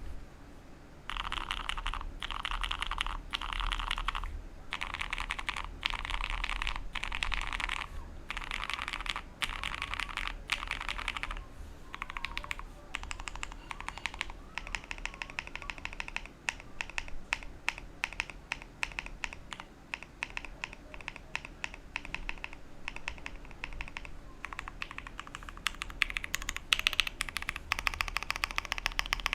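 Typing on a Bakeneko60 mechanical keyboard with Cherry MX Brown switches on an aluminum plate: fast runs of keystrokes broken by short pauses, with sharper, louder separate strokes near the end.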